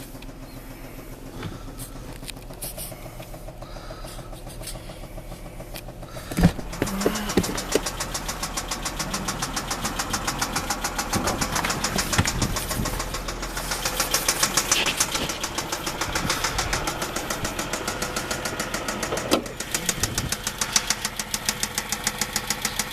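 2007 Dodge Charger's 3.5-litre V6 running with a rapid, even ticking knock from the top end. It is fainter at first, then louder from a thump about six seconds in.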